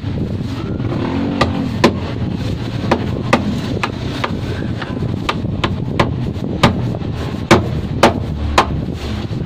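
A string of sharp, irregular clicks and knocks, about one every half second to second, over a steady low rumble.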